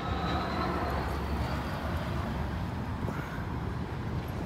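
Steady low rumble of distant engines, with a faint high whine that rises slowly over the first second or so.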